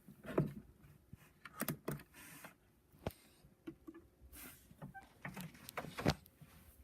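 Irregular clicks, knocks and short swishing rustles as computer hardware is handled and switched on; the loudest knock comes near the end.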